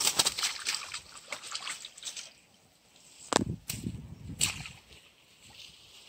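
Water splashing and sloshing as a mesh fishing net is worked at the water's edge: a busy stretch of splashing at first, then a few sharp splashes with dull thuds about three and a half and four and a half seconds in.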